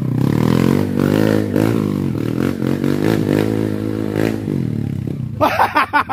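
Off-road motorcycle engine revving up and down in uneven bursts, fading out about four and a half seconds in; people shouting near the end.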